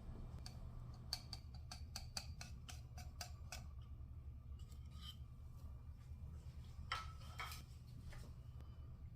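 A quick run of about ten light clicks, roughly four a second, followed by a few scattered taps, over a faint steady hum.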